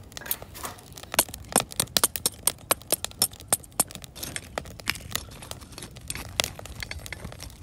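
A metal tool striking and breaking ice frozen along the edge of a tent: a run of sharp knocks and cracks, several a second, among the crunch of ice shards.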